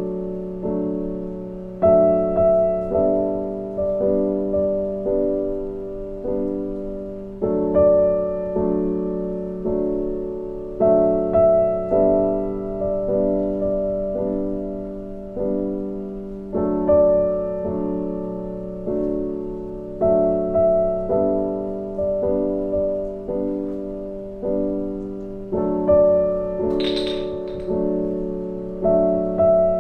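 Background piano music: a slow, gentle piece with notes struck about once a second, each ringing and fading.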